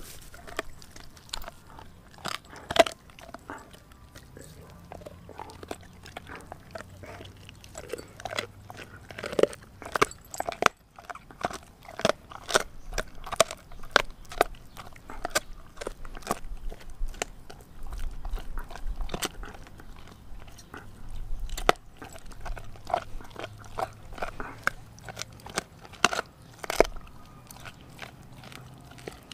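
A Doberman gnawing a raw frozen pig's foot with her back teeth: a long run of irregular crunches and sharp clicks of teeth on frozen meat and bone, several a second at times, with short pauses between bouts.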